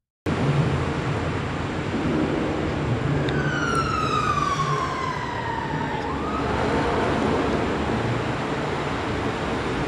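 Street ambience with a steady background rumble of traffic, and a siren wailing, its pitch sliding down over about three seconds from about three seconds in, then starting to rise again.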